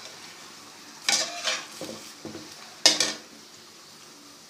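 A metal spoon clattering and scraping against a pan while turning and lifting eggs out of hot frying oil, with two louder clatters about a second in and about three seconds in. A faint sizzle of the oil runs underneath.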